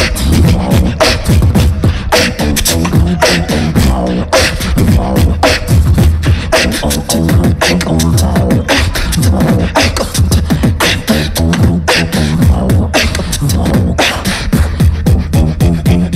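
Two beatboxers performing a tag-team routine into handheld microphones over a PA: mouth-made kick and snare hits on a steady beat over a continuous bass line.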